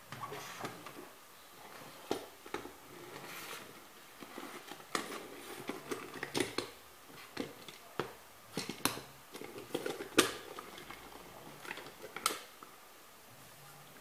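Hard plastic toy pieces clicking and knocking as a blue transforming robot-airplane toy is folded by hand into its plane form and toys are set down on a tabletop. Irregular sharp clicks throughout, the loudest about ten seconds in.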